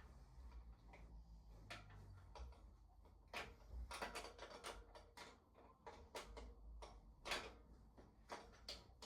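Scattered light clicks and knocks of bike parts and tools being handled during e-bike assembly, irregular and quiet, with a busier patch a few seconds in and one sharper knock near the end.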